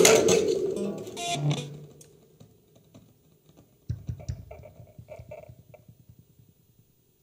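Free improvisation by a mixed ensemble of prepared piano, guitars and electronics: a loud chord dies away over the first two seconds, then sparse quiet notes and a sudden low knock come about four seconds in, thinning almost to silence near the end.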